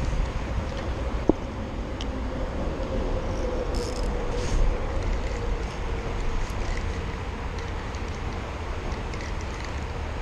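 Steady wind rumble on the microphone, with a faint whirring from a spinning reel as a hooked fish is reeled in against a bent rod. There are a couple of sharp clicks about a second and two seconds in.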